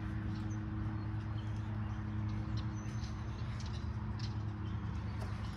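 A steady low mechanical hum, as of a motor running, with faint rustling and light ticks as clothes are handled and folded.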